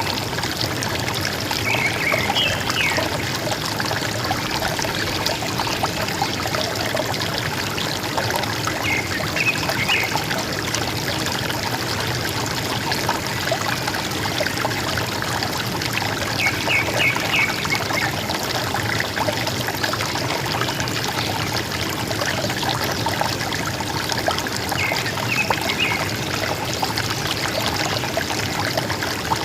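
River water flowing and gurgling steadily. A bird gives a short, high call four times, about every seven or eight seconds.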